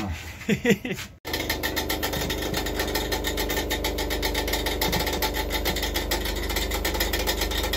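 Electric motor of a ceiling-mounted ventilation unit in a passenger rail coach running with a fast, even rattling knock. It is a bad sound from the motor, which is later traced to a knock inside the unit. It starts abruptly about a second in.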